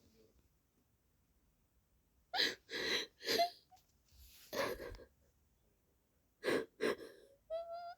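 A girl or woman crying. First three quick gasping sobs, then a longer breath, then two more gasps. Near the end comes a short, high-pitched whimper.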